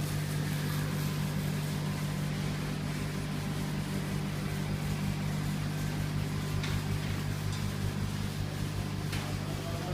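Laser engraving machine running while it engraves a picture: a steady mechanical hum with a low drone, and a couple of faint ticks late on.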